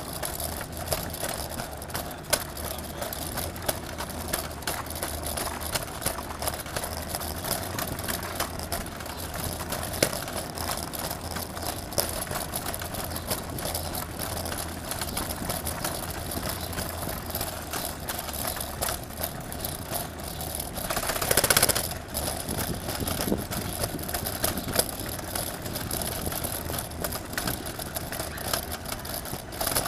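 Steady city street traffic noise, engines running and idling, with a brief louder surge of noise about two-thirds of the way through.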